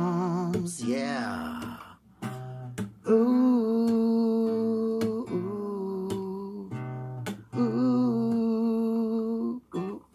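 Acoustic guitar strummed, with a man's voice holding long wordless notes over the chords in three sustained phrases.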